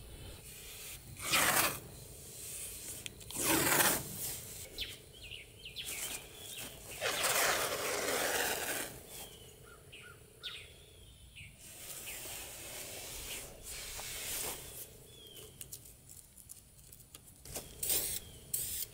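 Painter's tape being pulled off its roll in several short noisy strips, the longest lasting about two seconds, and pressed onto the steel side of a yard dump cart. Birds chirp faintly in between.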